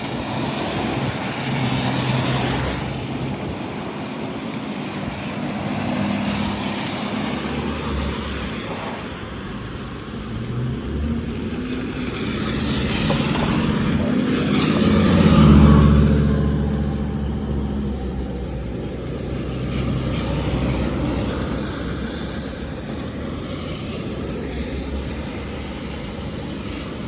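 Road traffic on a rainy road: vehicles passing close by one after another in swelling waves, the loudest a vehicle with a low engine note about fifteen seconds in.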